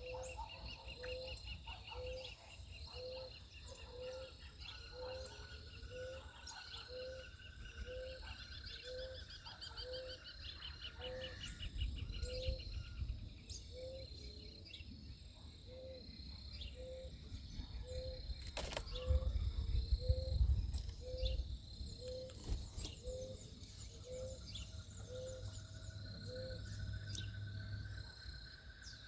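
Birds chirping and calling, with a short low note repeated about once a second throughout, a steady high trill in the first half and rising trilled phrases. A couple of sharp clicks come midway.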